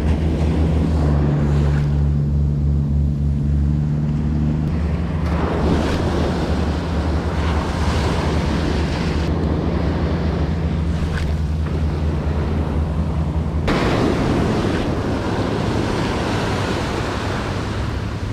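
Ocean surf breaking and washing up a sandy beach, with wind on the microphone and a steady low hum underneath that changes about 14 seconds in.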